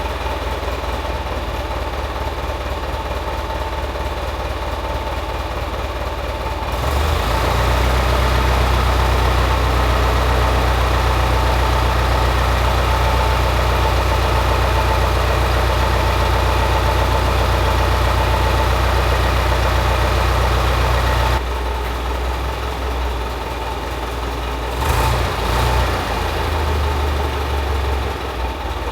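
Caterpillar D4C bulldozer's diesel engine running after its crankshaft and bearing overhaul. It is steady at first, then louder and deeper from about seven seconds in. It drops back abruptly about twenty-one seconds in and runs unevenly near the end.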